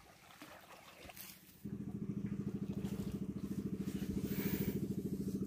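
Faint rustling for about the first second and a half. Then a small engine comes in abruptly and runs steadily with a fast, even pulse.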